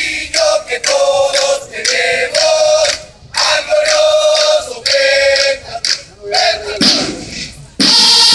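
Bugles of a drum and bugle band sounding a call in unison: a run of held and short notes stepping between a few pitches. Near the end the snare drums come in together.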